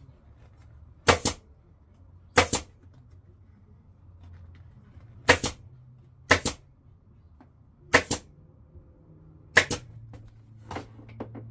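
Pneumatic upholstery staple gun firing six times at uneven intervals of one to three seconds, each shot a sharp double crack as it drives a staple through the vinyl seat cover into the seat pan, with a few fainter clicks near the end.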